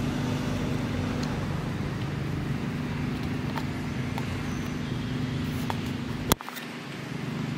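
A steady low motor hum. A single sharp click comes about six seconds in, and the hum drops out briefly after it.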